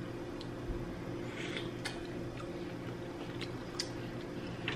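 Quiet eating sounds: scattered light clicks and taps as shellfish are picked out of steel pots, with faint chewing, over a steady low hum.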